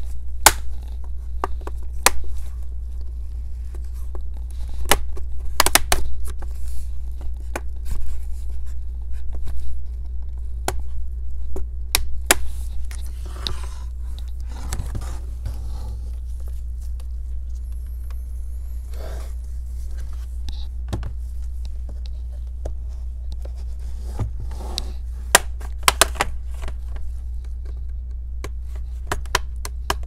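Plastic bottom cover of an HP laptop being pried off its palm rest: scattered sharp clicks of the retaining clips letting go, with stretches of plastic scraping and rubbing against plastic. A steady low hum runs underneath.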